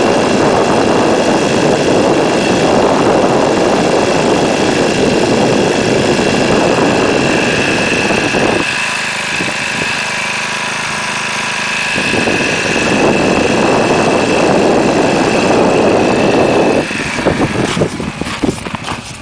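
A small engine running steadily with a faint whine, dropping in level for a few seconds midway, then giving way to uneven, choppy noise near the end.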